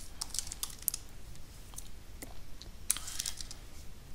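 Keystrokes on a computer keyboard as a terminal command is typed: a quick run of soft clicks in the first second, a few scattered taps, then another short run about three seconds in.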